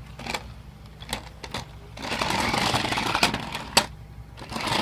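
Toy remote-control car's small electric motor and plastic gears whirring in two bursts, each a second or two long, after a few sharp clicks from the car or its controller as the controls are worked.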